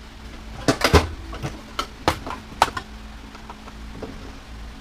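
Sharp clicks and knocks of parts and tools being handled while a washer/dryer combo is dismantled for scrap. About a dozen irregular hits, the loudest cluster about a second in.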